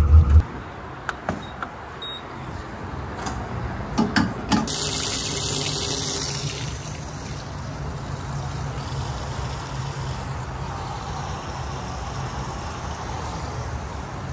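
Gasoline flowing from a pump nozzle into a pickup's fuel tank, a steady rushing that starts about five seconds in after a few clicks, with a low hum underneath. A vehicle engine is heard loudly for the first half second.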